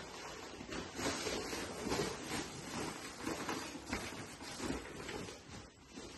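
Fabric rustling and scuffing as a jacket is stuffed into a nylon sports bag and the bag is handled, in irregular bursts.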